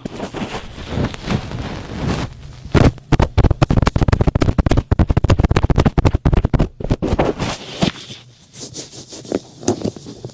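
A thick cotton swab rubbing and scrubbing close up for ear-cleaning ASMR. It starts as softer rubbing, turns into quick, dense scratchy strokes from about three to seven seconds in, then eases back to slower, lighter rubs.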